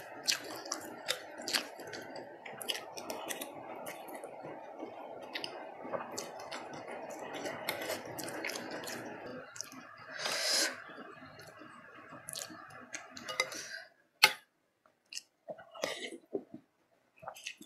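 Close-miked chewing of rice-vermicelli noodles and meatball in spicy soup: a steady wet chewing with smacking clicks, and one louder wet burst about ten seconds in. The chewing stops about fourteen seconds in, leaving only sparse wet mouth clicks.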